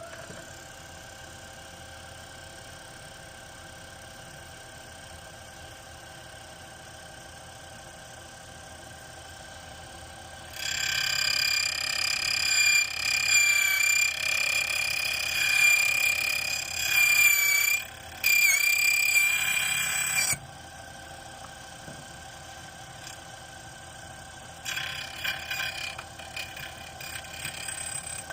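Electric key-cutting machine running: a loud, high-pitched motor whine for about ten seconds that wavers as the cutter works the blank, then a shorter, quieter run near the end, over a steady low hum.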